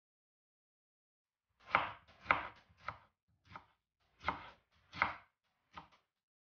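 Knife cutting through a tomato onto a plastic cutting board: about seven separate cuts, one every half to two-thirds of a second, starting about a second and a half in.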